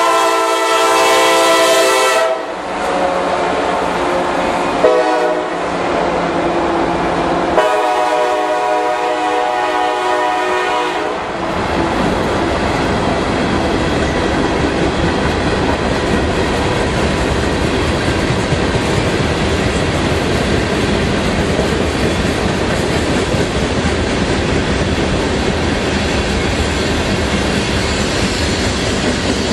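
A freight train passing close by. The locomotive horn sounds three times: a long blast, a short one, then a longer one. After that the steady rumble and clickety-clack of a long string of hopper cars and tank cars rolling past on the rails.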